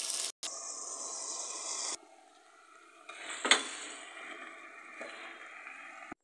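Sizzling and rustling as chopped Swiss chard goes into a stainless steel pot of frying mince and onion, then a wooden spoon stirring it, with one sharp knock against the pot about halfway through.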